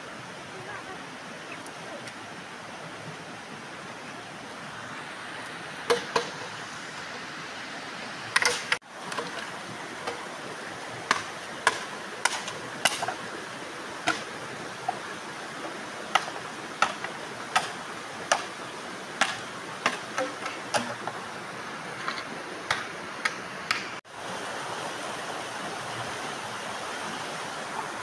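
A stream rushing steadily over stones. From about six seconds in until near the end, a string of sharp clacks and knocks rides on top, irregular at first and then coming about once a second.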